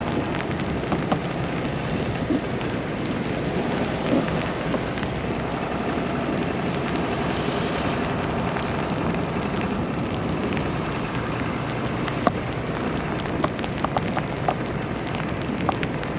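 Steady, loud hiss of a winter storm, with scattered small ticks and clicks through it.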